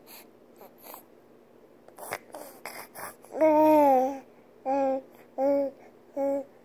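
Baby babbling close to the microphone. A few soft mouth clicks and breaths come first, then one long falling "aah" about three and a half seconds in. After that comes a string of short, evenly spaced syllables, roughly one every three-quarters of a second.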